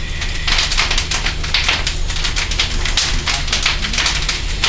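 Fire crackling and popping densely and irregularly inside a steel flashover training container, with a low steady hum underneath.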